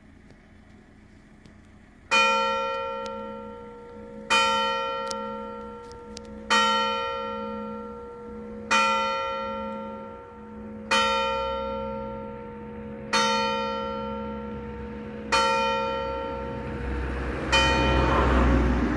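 A single church bell tolling slowly: eight evenly spaced strokes about two seconds apart, starting about two seconds in, each ringing on and dying away before the next.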